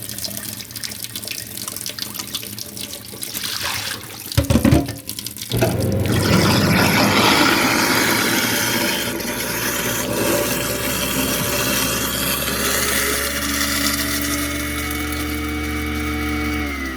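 Moen garbage disposal with the tap running: water first, then about five seconds in the motor starts with a steady hum and a rough grinding of food scraps such as noodles. Later the grinding thins and a steady motor whine comes through. Right at the end it is switched off and begins to wind down, falling in pitch.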